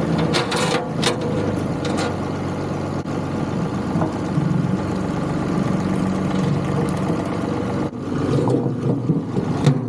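John Deere 2038R compact tractor's diesel engine running steadily at low speed, with a few sharp knocks in the first couple of seconds.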